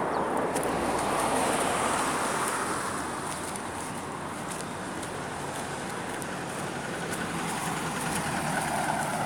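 Road traffic: cars passing on the road, one swelling up and fading in the first few seconds and another building up near the end.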